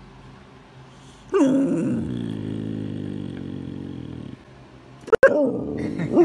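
A husky puppy vocalizing: about a second in, a long call that drops in pitch and then holds low for about three seconds, followed by shorter falling calls near the end.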